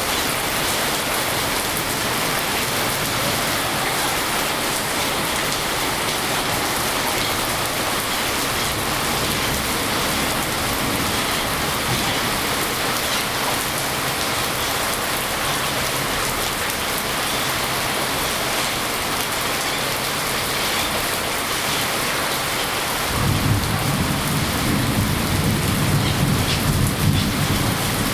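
Steady heavy rain, with a low rolling rumble of thunder coming in about five seconds before the end.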